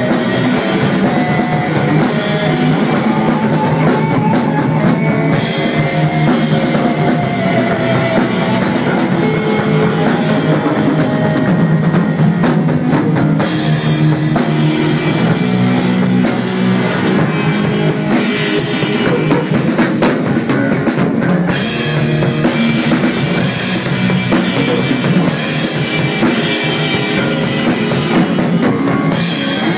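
Stoner rock band playing: electric guitar, bass and a drum kit in a steady heavy groove. The cymbals come in and drop out several times.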